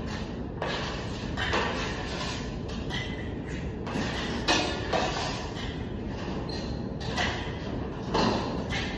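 Irregular scraping strokes of hand tools on a Venetian plaster ceiling being repaired, a few short swishes every second or two over a steady low rumble.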